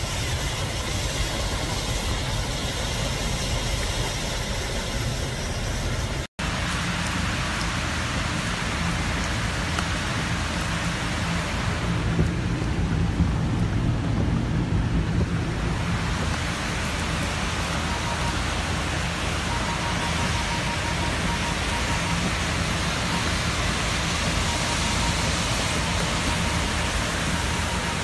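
Steady heavy rain pouring down in a hailstorm. The recording cuts abruptly about six seconds in, and a car engine hums steadily under the rain for a while after.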